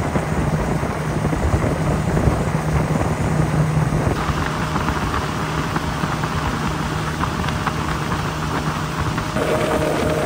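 A motorboat's engine running steadily under a rush of wind and water noise, with a higher engine tone that comes in about four seconds in and shifts near the end.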